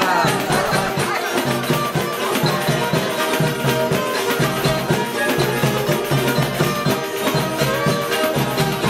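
A small folk band playing a lively dance tune with a steady beat: a bowed fiddle, guitars, a hand drum and a shaker.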